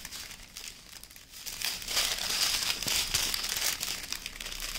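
Plastic from a diamond painting kit being handled and crinkling: faint at first, then steady crinkling and rustling from about two seconds in.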